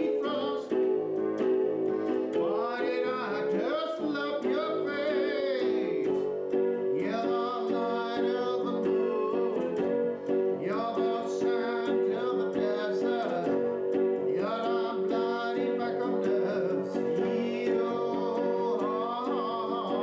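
A song played on an electronic keyboard: steady held chords underneath, with a man's sung melody in wavering phrases of a few seconds each over them.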